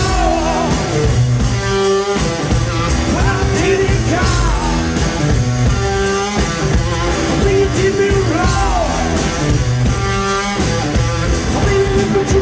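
Live rock band playing an instrumental break: an electric guitar riff over drums, the phrase repeating about every four seconds with bent notes.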